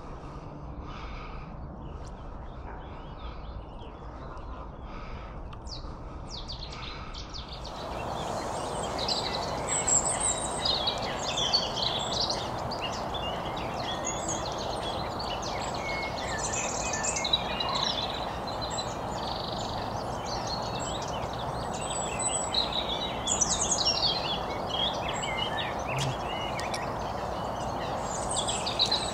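Wild birds singing in a busy chorus of chirps and short trills over a steady background hiss, growing louder and denser about eight seconds in.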